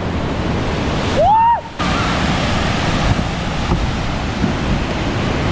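Steady rush of whitewater pouring down a steep granite slide into a churning pool, with one short shout about a second in.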